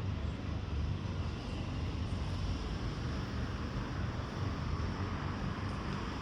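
Steady low rumble with a fainter hiss over it, even throughout with no distinct events.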